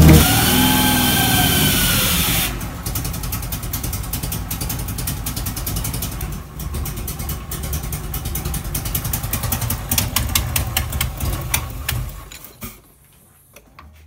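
Music fading out about two seconds in, then the Nissan 300ZX Z31's V6 engine running roughly with a rapid ticking clatter, until it stops near the end. The noises are air spewing out of the side of the intake manifold, where two manifold bolts were left loose.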